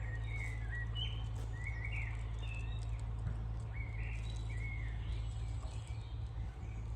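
Songbirds chirping in short, repeated phrases over a steady low rumble.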